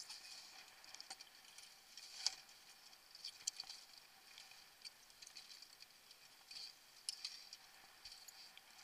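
Faint, irregular light ticks and taps from the Buzz dinghy's hull and fittings as the crew moves about on the foredeck, with one sharper knock about two seconds in.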